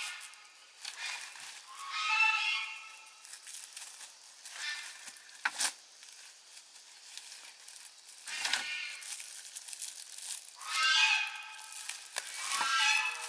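A small animal's high-pitched cries, about six short calls that bend up and down in pitch, with scattered crackles in between.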